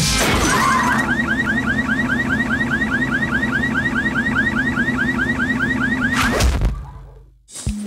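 A car alarm sounding in a fast run of rising chirps, about five or six a second, over a steady low hum. It starts about a second in and cuts off suddenly a little after six seconds.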